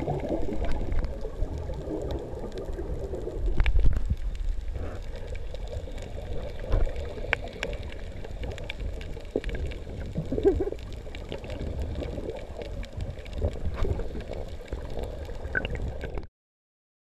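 Underwater water noise picked up by the camera's microphone: a muffled, low rumble with gurgling and scattered small clicks, and a few brief louder swells. It cuts off suddenly near the end.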